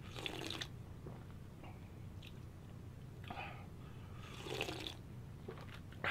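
A person drinking soup broth straight from a bowl: a few soft, faint sips and swallows, about three of them.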